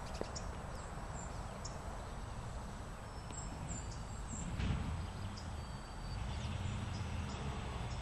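Outdoor background sound: a steady low rumble with a faint steady high whine, and a few faint, short, high bird chirps scattered through. A soft thump comes about four and a half seconds in.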